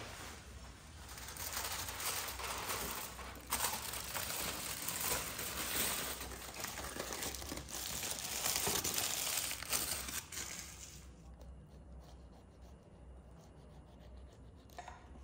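Aluminium foil being peeled off a baking tray and crumpled, crinkling and rustling for about ten seconds before it dies down. It opens with a knock as the covered tray is set down.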